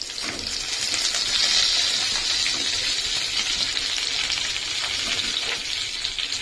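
Chopped onions sizzling as they go into hot oil in a steel pan where garlic, cumin and curry leaves are frying. The sizzle is steady and swells about one and a half to two seconds in.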